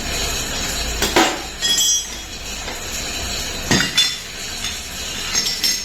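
Metal tools and gearbox parts clinking and knocking against each other, about half a dozen sharp strikes, some leaving a brief metallic ring, over a steady background hiss.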